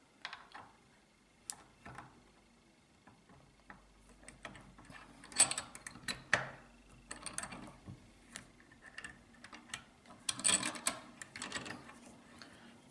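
Small metal clicks and clattering as the pistol's recoil spring and guide rod assembly is handled and clamped in a bench vise. There are two louder spells of rattling, about five seconds in and again about ten seconds in.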